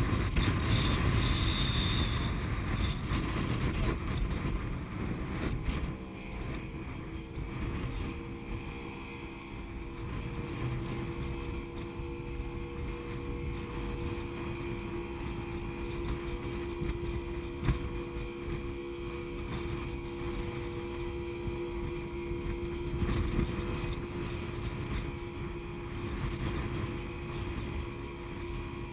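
Boat engine running steadily under wind buffeting the microphone. The wind eases about six seconds in, leaving a steady engine hum over the rush of water and wind.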